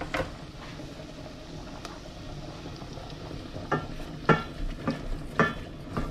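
Onions and chorizo sizzling steadily on lowered heat in a stainless steel pot as double cream is spooned in and stirred, with a spoon knocking and scraping against the pot and cream tub about half a dozen times.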